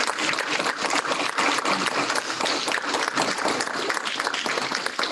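A small group of people applauding steadily, many hands clapping at once.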